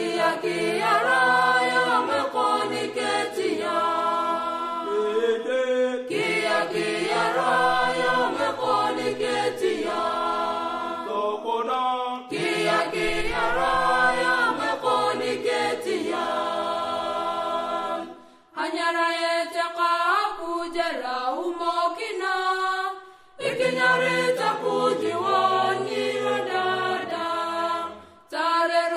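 A choir singing a slow chant in harmony, in sustained phrases of several seconds with brief breaks between them. The low voices drop out for one phrase in the second half.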